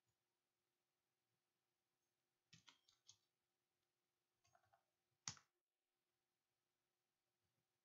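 Faint computer keyboard typing. A few quick keystrokes come about two and a half seconds in and a couple more near four and a half seconds, then one sharper key click just after five seconds.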